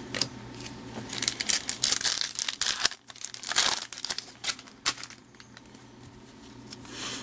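Crinkling of a trading card pack's foil wrapper as it is torn open and handled: dense crackling for about five seconds, fading to lighter rustling near the end.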